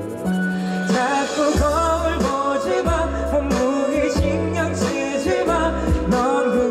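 Live pop song performance: a singer's wordless vocal runs over sustained bass and chords with a steady beat.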